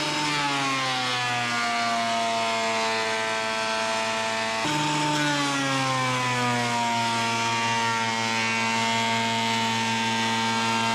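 Electric woodworking machine cutting lumber: its motor whine drops in pitch as a board loads it and then holds steady. The same drop comes again about halfway through.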